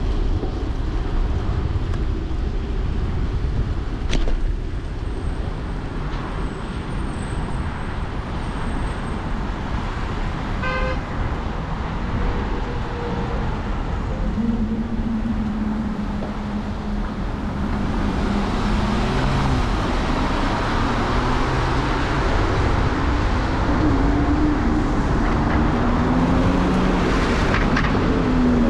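Motor traffic on a wet road, heard from a moving bicycle: a steady low rumble of wind and road noise, growing louder over the last ten seconds as the hiss of tyres and the hum of passing vehicles' engines build.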